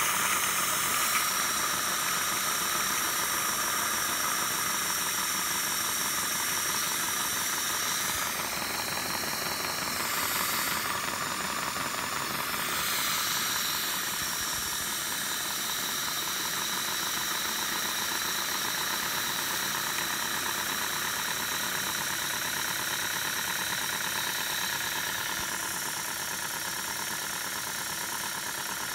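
Accucraft Peckett live-steam model locomotive running on the test bench: a continuous steam hiss with a fast, even beat from its cylinders. The hiss changes in tone for a few seconds near the middle.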